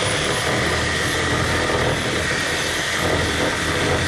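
A high-speed electric power-tool motor finishing a quick rising whine as it spins up, then running steadily at full speed with a low hum underneath.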